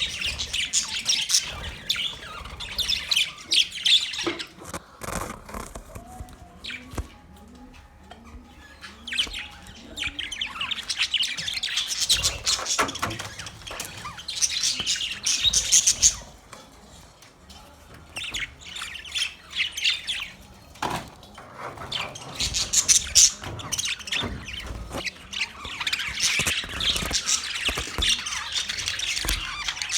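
A group of budgerigars chirping and chattering in a cage: rapid, high twittering that swells and fades, with brief quieter lulls.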